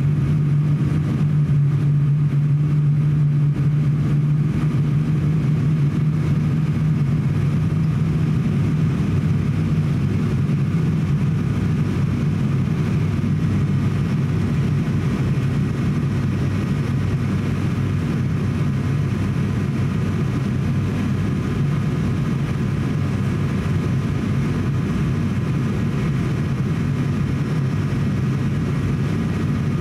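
Cabin drone of an ATR 42-600 turboprop on final approach, heard from a window seat beside the propeller. A steady deep propeller hum runs over constant engine and air noise, and the hum eases slightly a few seconds in.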